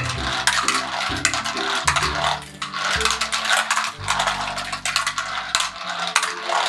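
Small toy cars rattling and clicking as they roll one after another down the zigzag ramps of a wooden car-park toy. Low background music plays underneath.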